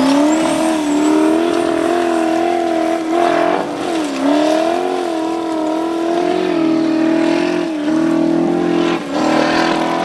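Formula Offroad hill-climb car's engine running at high revs as it powers up a steep dirt slope. The revs hold mostly steady, with a few short dips as the throttle is lifted: one about midway and two near the end.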